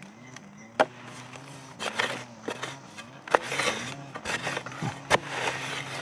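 Digging in earth with a hand tool: three sharp strikes, about one, three and five seconds in, with scraping and crumbling soil between them.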